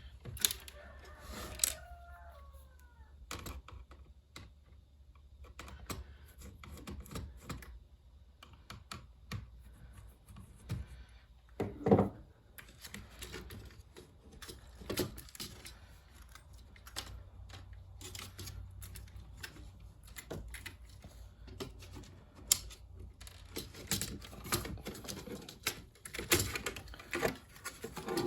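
Screws being backed out of a Commodore SX-64 keyboard's plastic case with a screwdriver: scattered clicks and light clatter of driver, screws and plastic, with a brief squeak near the start and one louder knock about twelve seconds in.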